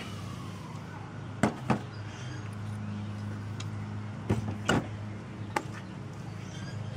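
Sharp metal clinks, two pairs and then a single one, from the cassette lockring removal tool, adjustable wrench and freed lockring being handled, over a steady low hum.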